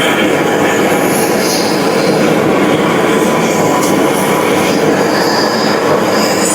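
Steady, loud mechanical noise, like a heavy machine running, with faint high squeals coming and going.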